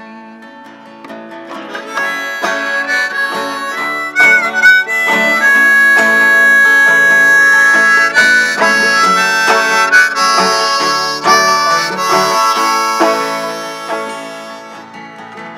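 Harmonica solo over strummed acoustic guitar and banjo in a folk song. The harmonica comes in about two seconds in and holds one long note in the middle of the phrase.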